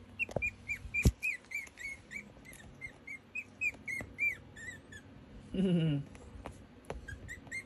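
Chihuahua puppy whining in a run of short, high squeaks, about three or four a second, which stop after about five seconds and start again near the end. A couple of soft knocks and a brief lower vocal sound come in the pause.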